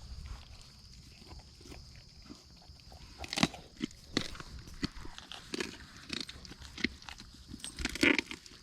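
Dogs chewing and crunching on a raw deer carcass, with irregular sharp cracks of bone and meat being bitten; the loudest crunches come about a third of the way in and near the end.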